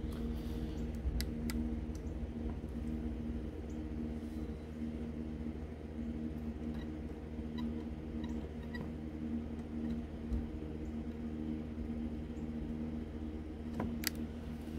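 Steady low electrical hum from a motor or appliance, with a few faint clicks of small parts being handled at the clamp, about a second in and again near the end.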